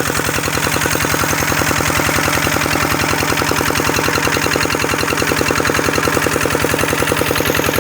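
Kubota engine running steadily, with a rapid, even beat of about ten exhaust pulses a second.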